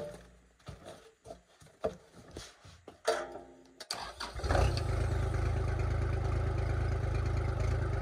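Kubota L2501 tractor's three-cylinder diesel engine being started cold: a few clunks and knocks, a brief burst of cranking about three seconds in, then the engine catches about four seconds in and runs steadily.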